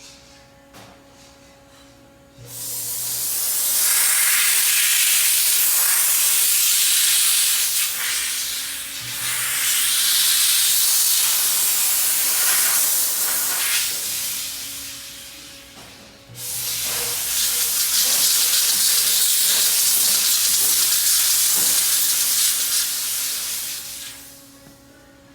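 Dry vapor steam cleaner blowing steam in two long hissing bursts: the first starts about two and a half seconds in, eases briefly partway and stops after about eleven seconds; the second starts a couple of seconds later and stops near the end. A faint steady hum runs underneath.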